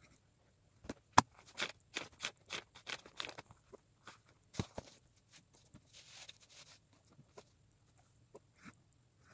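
Sheets of paper being handled and shifted on a desk: a quick run of crisp rustles and taps over a few seconds, the loudest a sharp tap about a second in. A softer sliding rustle follows about six seconds in.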